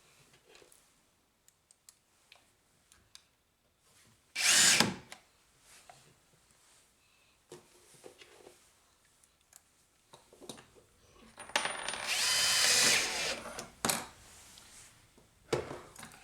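Power drill run in two bursts to drill in the door shims: a short one about four seconds in and a longer one of about two seconds with a whine near the end. Small clicks and taps in between.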